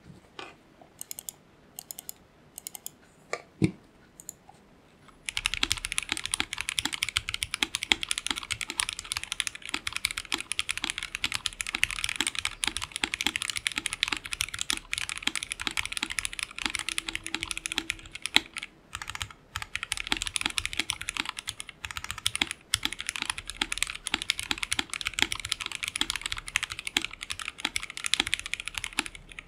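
Typing sound test on a full-acrylic, gasket-mounted custom 60% mechanical keyboard with JWK Black linear switches on a 1.5 mm acrylic plate and PBT Cherry-profile keycaps: a few separate keystrokes, then fast continuous typing from about five seconds in. High-pitched and clacky.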